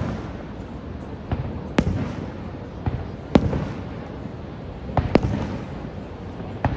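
Fireworks shells bursting overhead: a run of about seven sharp bangs at uneven intervals, some in quick pairs, over a steady low background rumble.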